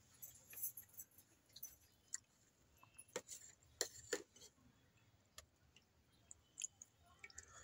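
Faint chewing and mouth clicks of a person eating, with scattered short sharp clicks, the loudest around three to four seconds in.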